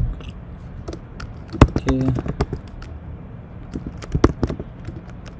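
Computer keyboard typing: a handful of sharp key clicks at an uneven pace, with short pauses between them.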